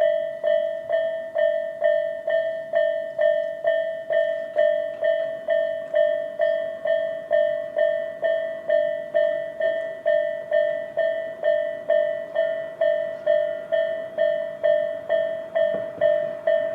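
Japanese railway level-crossing alarm, the electronic Tobu-type bell known as "Tobu sound A", dinging steadily at a little over two strokes a second, each ding a bright ringing tone that dies away quickly. It is the warning that a train is approaching the crossing.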